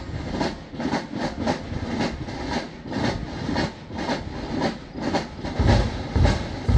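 Marching-band drums of massed brass bands beating a steady march rhythm, about two strokes a second, snare and cymbal strokes with the bass drum coming in heavily near the end.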